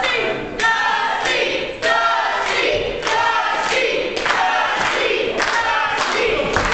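Wrestling crowd chanting in unison, a short chant repeated about every second.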